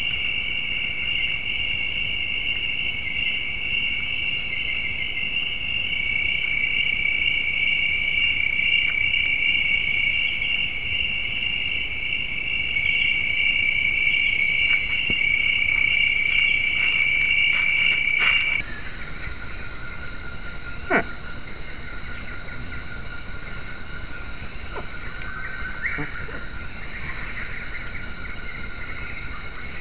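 Steady, shrill chorus of rainforest night insects such as crickets. About two-thirds of the way through it cuts suddenly to a quieter, lower insect drone, with one sharp click a couple of seconds after the change.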